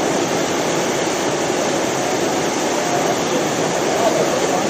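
Whitewater rushing steadily through an artificial concrete slalom channel, an even, unbroken rush of churning water.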